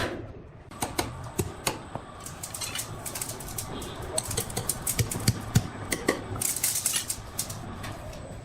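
Rapid, irregular clicking and light knocking, thickest through the middle.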